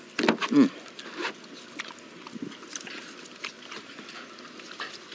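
Small terriers being fed cantaloupe. A short rising-and-falling vocal sound comes near the start, then light scattered clicks and rustles from the dogs moving on dry leaves and a plastic tray being handled.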